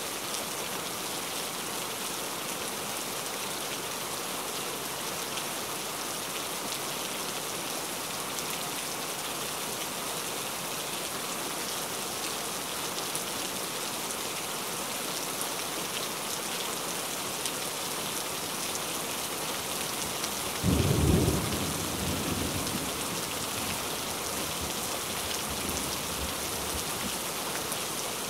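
Steady heavy rain. About two-thirds of the way through, a sudden low clap of thunder breaks in and rumbles away over a couple of seconds.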